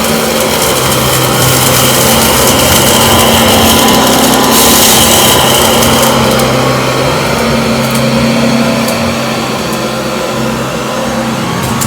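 Hoover ONEPWR cordless stick vacuum running on high speed: a steady motor hum under a rush of air, a little louder and brighter in the middle, then easing slightly near the end.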